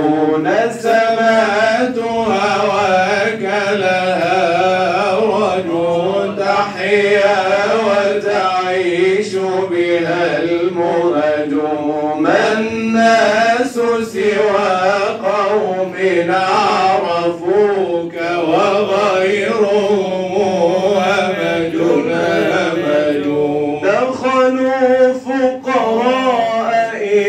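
Male Sufi munshid singing Arabic religious inshad in long, ornamented melismatic phrases, holding notes with a wavering pitch.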